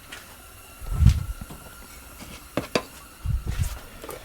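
Handling noises as a greased steel tool part and tools are moved about: a dull thump about a second in, two sharp clicks a little past two and a half seconds, then a few more low thumps.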